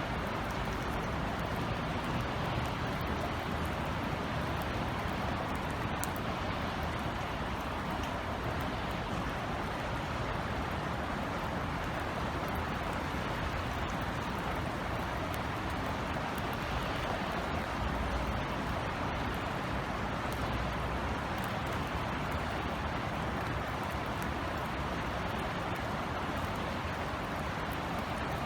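Steady rain falling in a city, an even hiss with a few scattered drop ticks, over a low traffic rumble that swells for a few seconds past the middle.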